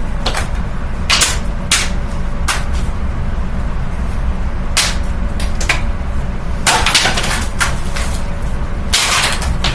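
Running Amazon Basics box fan's steady low whir of motor and blades, with repeated sharp slaps and clatters as cards thrown into it hit the spinning blades and grille. There are bursts of rapid hits about seven seconds in and again just after nine seconds.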